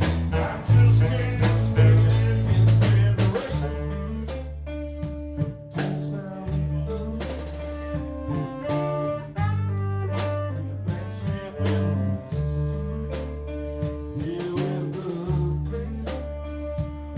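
A live band playing an instrumental blues-soul passage: bass guitar holding long low notes under a steady drum-kit beat, with guitar and other pitched instruments over the top and no vocals.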